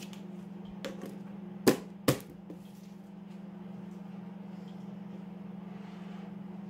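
Two sharp knocks of kitchen utensils or containers, about half a second apart, with a few lighter clicks, over a steady low hum.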